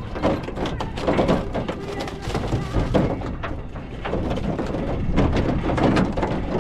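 Repeated knocks and thuds on a small fishing boat's hull and deck over a steady low rumble, as the boat rocks on choppy water.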